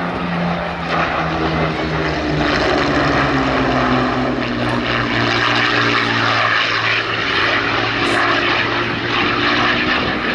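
Westland Lysander's Bristol Mercury radial engine flying past in a low display pass, its propeller note dropping in pitch about two seconds in and then holding steady.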